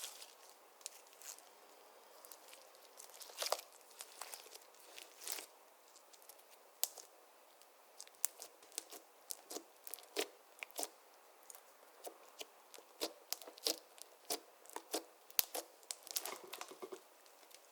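Slime being kneaded and stretched by hand: a run of irregular sticky clicks and small pops.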